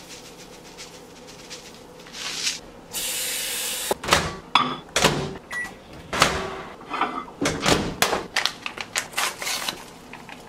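Kitchen handling sounds: about a second of steady hiss, then clunks and knocks of a microwave door and a short beep, followed by quick crinkling and tearing of a paper packet.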